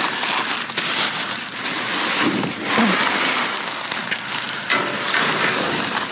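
Trash being dug through by hand: a continuous rustling and crunching of bags and debris, full of small sharp cracks and knocks.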